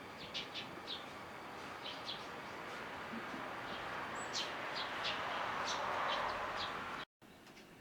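Small garden birds chirping in short, high calls, often several in quick succession, over a background rush that grows louder and then cuts off suddenly about seven seconds in.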